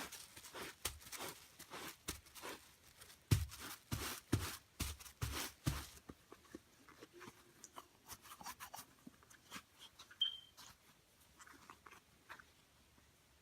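Rubber RC car tires being rubbed and handled with a WD-40-dampened towel: rustling and a series of light knocks, busiest in the first six seconds and fainter after.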